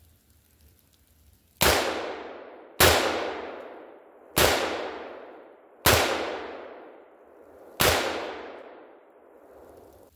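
Five rifle shots from a KelTec BPD 5.56 bullpup rifle, fired at an uneven pace a second or two apart. Each shot is followed by a long echo that dies away.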